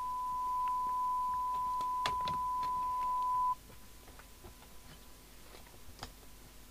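A steady 1 kHz audio test tone, the modulation tone used when aligning an FM CB radio, cuts off abruptly about three and a half seconds in. A few light clicks follow from handling the radio's board.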